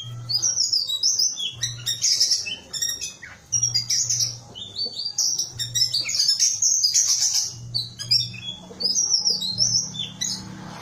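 Ciung batu kecil (small whistling thrush) calling: rapid runs of high, squeaky chirping notes, one after another with short breaks. A low hum comes and goes underneath.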